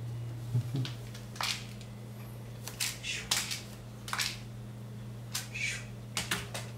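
A kitten batting a crinkly clear plastic toy around a wooden floor: about a dozen short, irregular crinkles and taps over a steady low hum.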